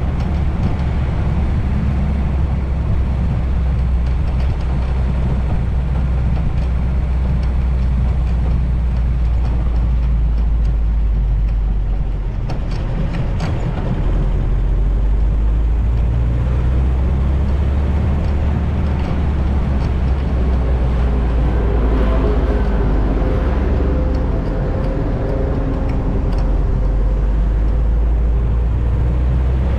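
Vintage Willys Jeep driving with the top and windshield down: a steady engine and road rumble, with low wind buffeting on the foam-covered microphone.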